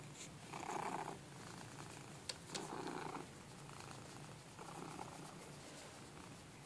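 Domestic cat purring close up while being stroked, the purr swelling three times about two seconds apart, with a few faint clicks.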